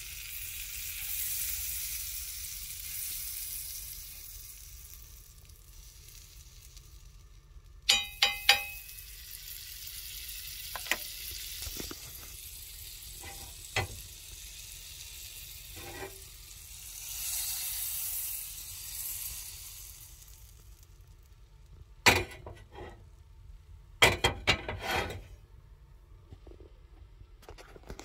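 Butter sizzling and foaming in a hot frying pan, the sizzle swelling twice. It is broken by scattered sharp knocks and clinks, loudest in a cluster near the end.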